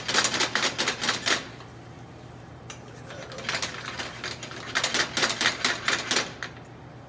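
A fork clicking and scraping quickly against a nonstick frying pan as beaten eggs are stirred into curds for an omelette, about six strokes a second. Two runs of strokes, with a pause of about two seconds between them.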